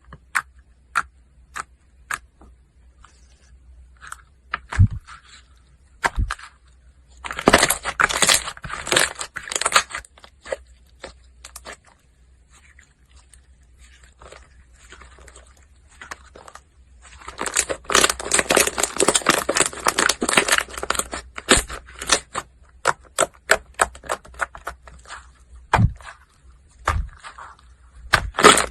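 Slime being squeezed, poked and pressed by hand: sharp clicks and pops, two longer stretches of dense crackling, and a few dull thumps.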